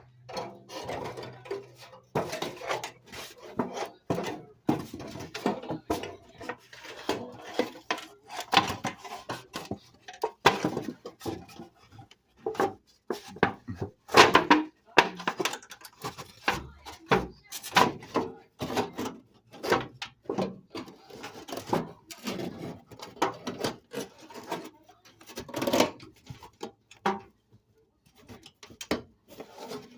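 Irregular knocks, clicks and clatter of hand work while fitting a register vent, with no steady rhythm.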